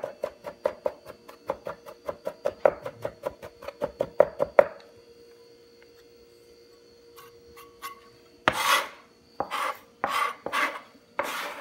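A cleaver rapidly chopping garlic on a cutting board, about five quick knocks a second, stopping about four and a half seconds in. After a pause, the blade is scraped across the board several times near the end, gathering the minced garlic into a pile.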